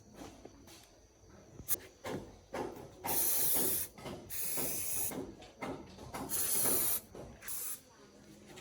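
Several short bursts of hissing spray, each a second or less, with light clicks and knocks between them.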